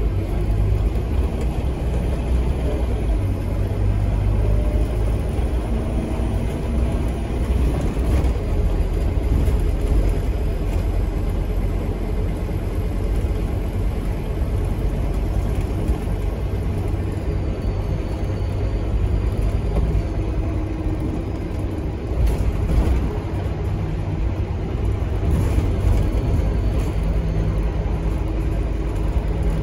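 Interior sound of a Scania K230UB bus under way: its engine and ZF Ecomat automatic drivetrain give a steady low rumble mixed with road noise. The uploader describes the bus as having some kind of turbo leak.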